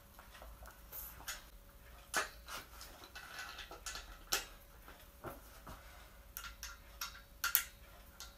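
Irregular light clicks and taps from the black metal tubes and plastic fittings of a keyboard stand being handled and fitted together, with a few sharper knocks among them.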